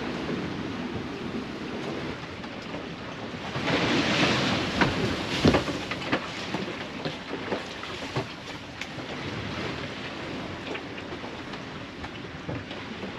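Alberg 30 sloop under sail in a rough sea: water rushing along the hull, with scattered knocks and creaks from the boat. A louder surge of water comes about four seconds in.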